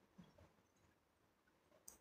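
Near silence, with two faint clicks: one just after the start and one near the end.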